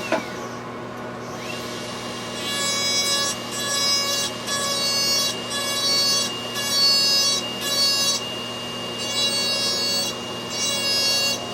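Dental handpiece spinning up with a steady high whine about a second and a half in, then grinding the 3D-printed resin splint in repeated short passes, about one a second. It is grinding down the high spots on the splint's biting surface that the articulating paper marked.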